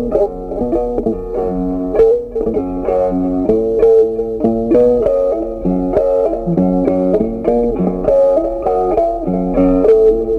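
Background music: plucked guitar playing a melody with a bass line.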